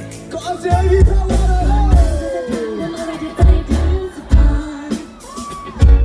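A live pop band playing, with singing over drums, bass, electric guitar and keyboard, and heavy booming bass hits.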